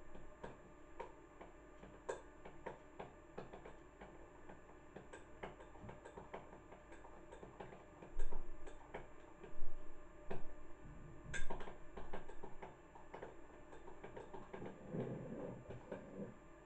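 Light, repeated clock-like ticking, with a few louder knocks and clatter about halfway through.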